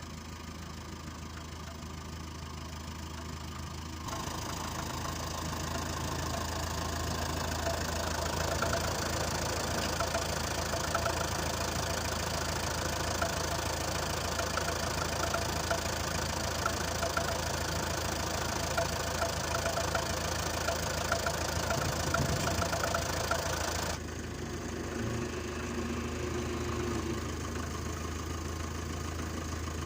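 Fordson Diesel Major tractor's four-cylinder diesel engine running steadily with a knocking clatter. The sound steps up louder about four seconds in and drops back abruptly about six seconds before the end.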